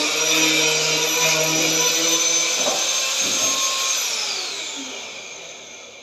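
Handheld electric cutting tool running free at full speed, then switched off about halfway through, its whine falling in pitch and fading as the blade spins down.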